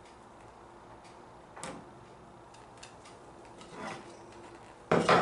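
Small objects handled on a workbench: a light click about a second and a half in, a soft rustle, then a short, loud wooden knock and clatter near the end.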